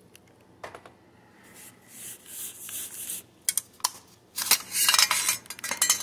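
Metal parts clinking and scraping as the unbolted handguard rail is worked off an AR-15 upper receiver. A few light clicks and some rubbing come first, then a louder burst of scraping and clatter near the end.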